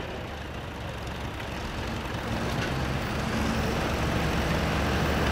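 Antique pulling tractor's engine idling steadily with a low hum, growing slightly louder, while it is hooked to the pulling sled.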